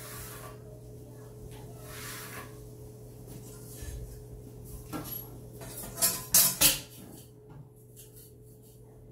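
Metal straightedge and square knocking and clattering on a granite countertop: a light knock about five seconds in, then three sharp clacks in quick succession a second later, over a steady low hum.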